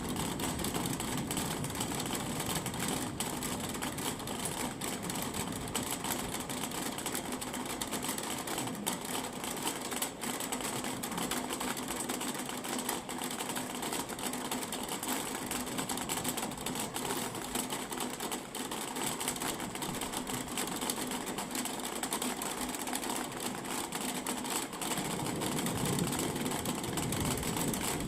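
Thunderstorm rain pattering steadily, a dense fast ticking of drops. A low rumble builds near the end.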